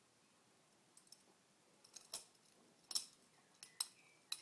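Butterfly knife (balisong) being flipped closed by hand, its metal handles and blade clacking together in a series of sharp metallic clicks.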